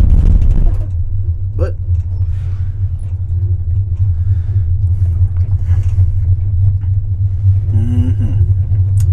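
Steady low rumble of an aerial tram cabin riding down its cable, heard from inside the cabin, loudest in the first second. Brief voices in the cabin about a second and a half in and again near the end.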